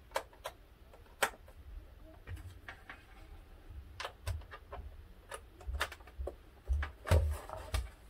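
Irregular clicks and light knocks of cable plugs going into a ZX Spectrum Next's sockets and its plastic case being handled. A couple of duller thumps come about seven seconds in as the computer is set down.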